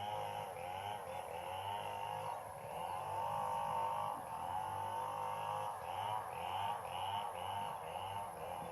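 Baby monkey crying: long, wavering cries that bend up and down in pitch and run on with hardly a pause.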